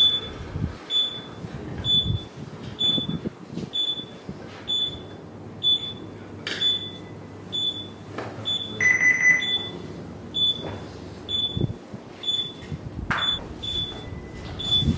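Alarm on a ship's bridge simulator console beeping steadily, a short high beep about once a second, with one longer, lower tone about nine seconds in.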